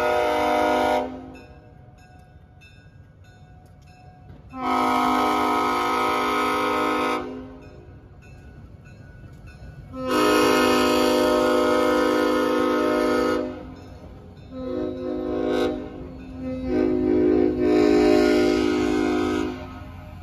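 Polson Logging Co. No. 2 steam locomotive's whistle blowing a series of blasts. The end of one blast comes first, then two long blasts, a short broken one and a final long one: the long-long-short-long pattern of a grade-crossing signal.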